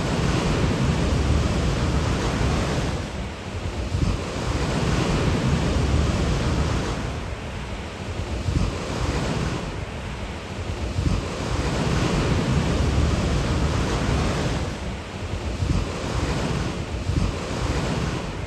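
Pacific Ocean surf breaking and washing ashore in swells every few seconds, with wind buffeting the microphone.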